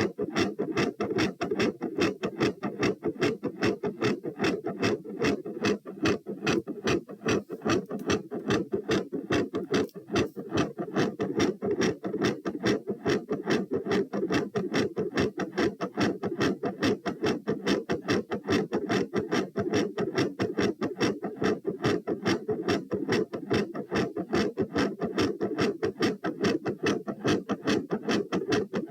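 Fast, regular heart sounds: each beat is a quiet first sound (S1) followed by a louder second sound (S2).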